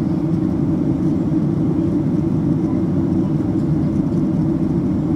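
Steady low rumble of a Boeing 767-300ER airliner's cabin in flight: engine and airflow noise heard from a window seat, unchanging throughout.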